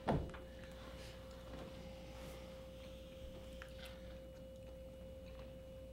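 A steady, faint mid-pitched electrical hum, with a brief knock right at the start and faint crinkles and small clicks from a candy bag being handled.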